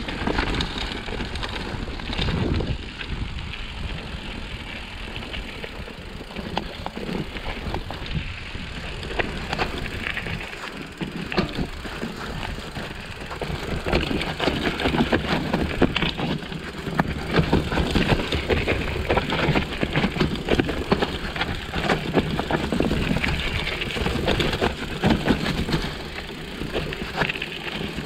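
Mountain bike rolling down a rough, rocky dirt trail: tyre noise on dirt and stones with constant clatter and knocks from the bike jolting over rocks and roots, getting louder about halfway through.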